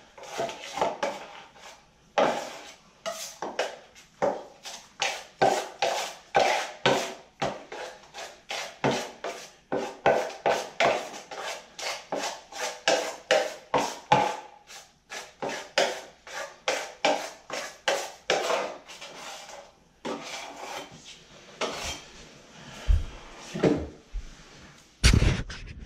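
A drywall knife scraping and stirring joint compound in a metal mud pan, quick repeated strokes about two a second, working powder and water into a smooth, creamy mud. A couple of louder, deeper knocks come near the end.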